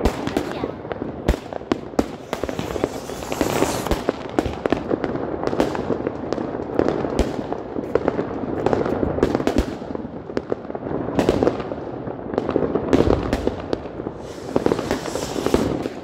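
Many fireworks rockets bursting all around, a dense, continuous string of sharp bangs and crackles.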